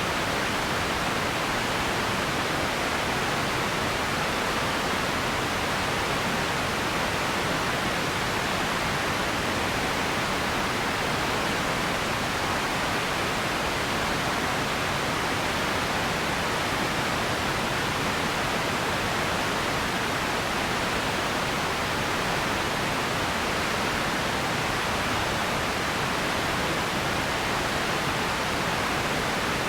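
Radio static: a steady, even hiss with no tones, crackles or breaks, strongest in the mid and upper-mid range.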